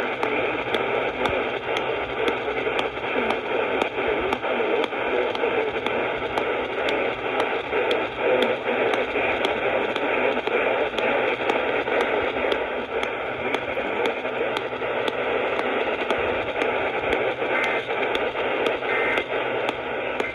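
AM radio static: a steady hiss with faint steady tones through it and evenly spaced clicks of interference, and no programme audio.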